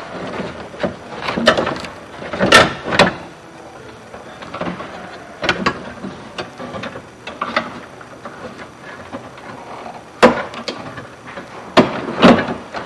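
Irregular clicks, knocks and clunks as a pickup truck's door latch assembly and hand tools are worked inside the door, with louder knocks about two and a half seconds in and again near ten seconds.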